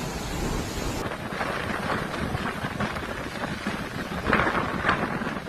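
Storm noise of strong wind and heavy rain rushing on the microphone. The sound changes abruptly about a second in, and two louder bursts come near the end.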